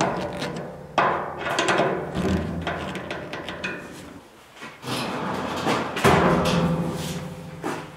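Irregular knocks and clacks of hands and tools working on a PVC sink drain pipe fitting, over a steady low tone.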